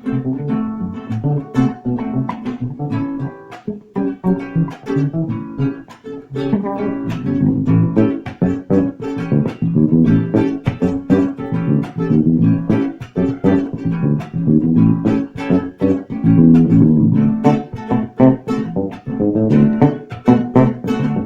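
A guitar played solo, plucked notes in a quick run of picked melody.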